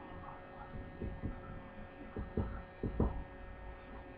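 Soft, low thumps of hands pressing and folding biscuit dough on a floured wooden cutting board, about half a dozen, the loudest near three seconds in, over a steady electrical hum.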